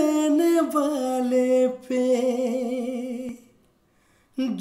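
A man singing the opening of a Hindi song unaccompanied, holding long wordless notes with vibrato. The voice breaks off about three and a half seconds in and comes back near the end.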